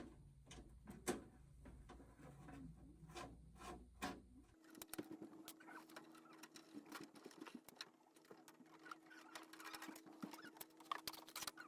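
Faint scattered clicks, taps and light rattles of computer parts being handled while a PC case is opened up. A faint steady hum comes in about halfway through.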